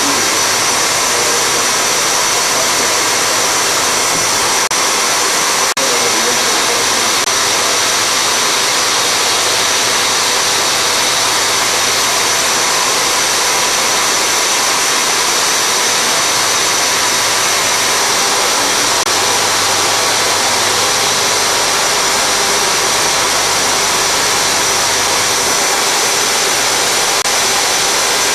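Steady, loud hiss of a chilled compressed-air jet blowing onto the cut, over a machine spindle running at 3000 rpm as an indexable carbide insert engraves S45C carbon steel 0.6 mm deep.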